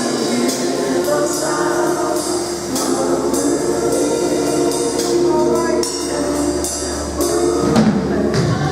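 Mass gospel choir singing with instrumental accompaniment and a steady percussion beat that sounds like tambourine.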